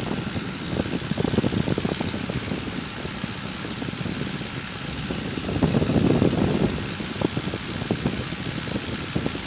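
De Havilland Tiger Moth's four-cylinder Gipsy Major engine running in flight, mixed with wind rushing past the open cockpit. The sound swells louder for about a second a little past halfway.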